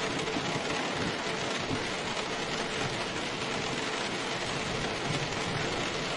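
Steady rain falling: a dense, even patter that does not change.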